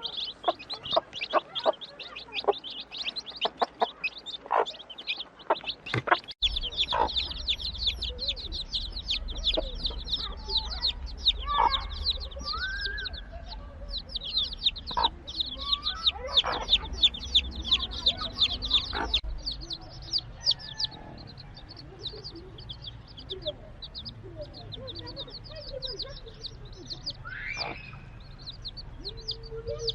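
A brood of young chicks peeping continuously in rapid, high-pitched cheeps, with a hen's lower clucks now and then.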